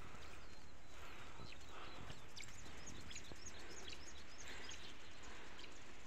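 Steady low wind rumble on the microphone, with a run of short, high chirps from small birds from about two seconds in until a second before the end.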